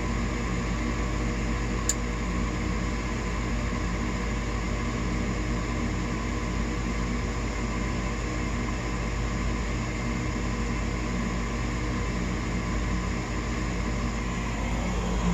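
Gas furnace on a test fire, its blower motor running with a steady hum, and a single sharp click about two seconds in as the furnace goes through its ignition sequence.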